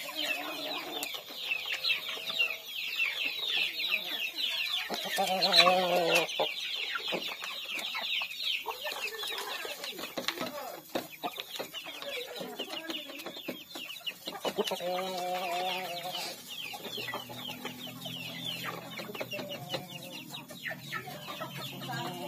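Young village chickens peeping over and over in quick, high, falling cheeps, with a few lower, drawn-out clucking calls among them.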